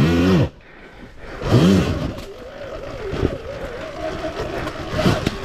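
Sur Ron Ultra Bee electric dirt bike's motor whining up and down in two short throttle bursts near the start, then running low under rough, scrapy trail noise with a few knocks.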